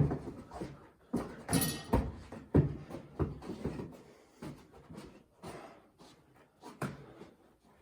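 Basketball bouncing on a hard indoor floor, a run of sharp knocks about every half second that thin out and grow fainter after about four seconds.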